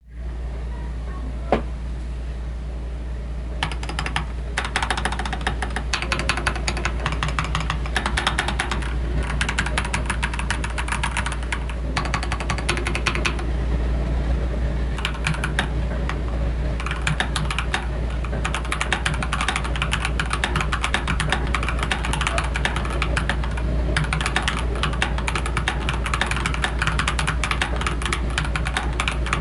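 Typing on an AKKO 3098N mechanical keyboard with stock TTC Flame Red linear switches: a single key click, then fast, dense keystroke clatter from about three and a half seconds in, broken by a few short pauses. A steady low hum runs underneath.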